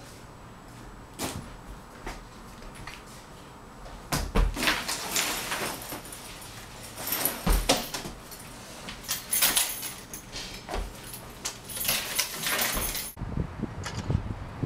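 Rustling and knocks as a backpack is picked up, shouldered and carried across the room, in clusters from about four seconds in. Near the end it cuts off abruptly to low, gusty wind noise on the microphone outdoors.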